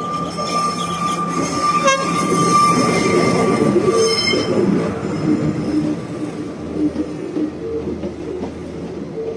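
Passenger train crossing a bridge: a high, steady squeal of wheels against the rails over the rumble of the carriages for the first five seconds or so, then a lower running rumble.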